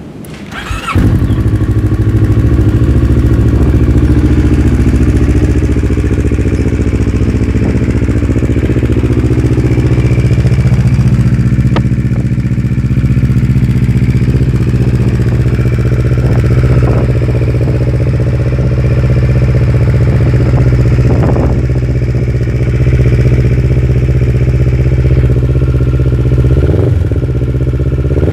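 Kawasaki Ninja 650's parallel-twin engine starting about a second in, then idling steadily.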